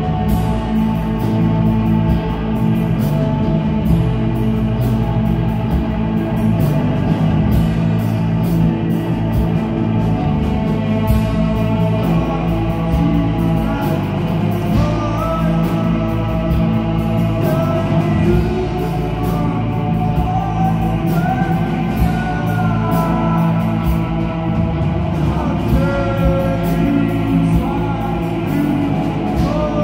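Rock band playing live, electric guitars over drums, with a melodic lead line coming in about halfway through.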